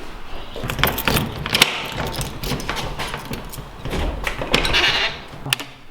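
Handling sounds: a run of sharp clicks and knocks, with two longer spells of rustling hiss, as of gear, keys and a door being worked.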